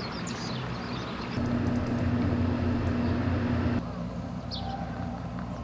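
A steady low engine hum, like a vehicle, that comes in about a second and a half in and stops abruptly just before four seconds. Short high bird chirps are heard near the start and once near the end.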